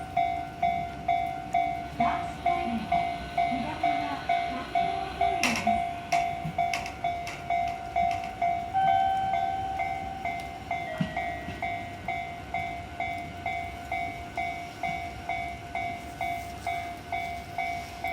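Japanese railway level-crossing warning bell ringing its rapid, even ding, about two and a half strikes a second. A sharp clank comes about five seconds in, and a steady held tone sounds for a couple of seconds in the middle.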